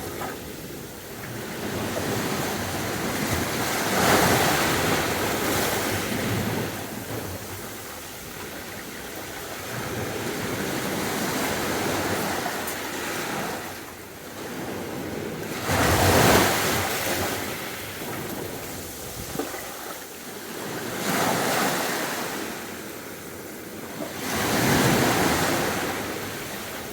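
Sea waves breaking and washing up on a beach, surging and falling back every several seconds, with the loudest wave about two-thirds of the way through.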